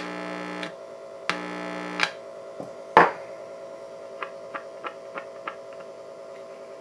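Hum and buzz from the Admiral 329's vacuum-tube amplifier through its loose speaker, with two short spells of louder buzz in the first two seconds, a sharp click about three seconds in, then a run of light ticks. The amplifier is passing signal but only faintly, well below the volume it is supposed to give.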